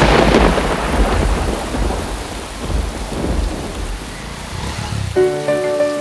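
Thunder rumbling over heavy rain, loudest at the start and slowly fading. About five seconds in, sustained musical notes come in over the rain.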